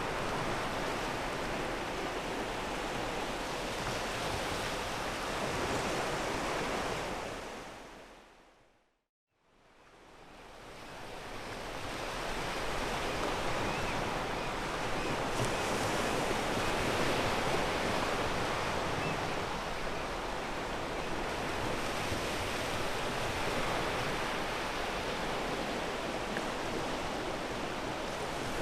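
Sea waves washing steadily onto a pebble beach. About seven seconds in the surf fades out to a moment of silence and fades back up over the next few seconds, an edit join between recordings.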